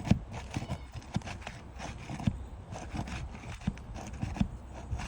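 Irregular knocks and short scrapes of hand-tool work on asphalt roof shingles, over a low steady rumble.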